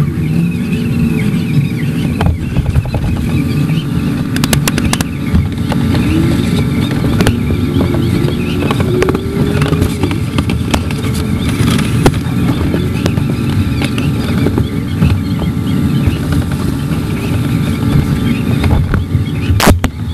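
Loud, busy street noise: running vehicle engines mixed with the voices of a crowd of marchers, with a few sharp clicks about four to five seconds in and again near the end.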